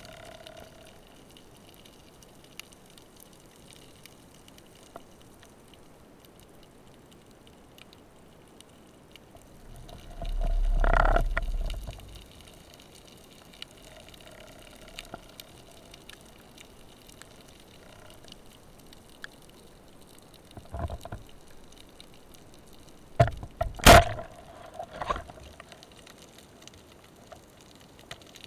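Underwater sound: a faint steady water hiss, a low rumbling surge about ten seconds in, then near the end a few sharp clacks, among them the shot of a roller-head speargun at a mullet.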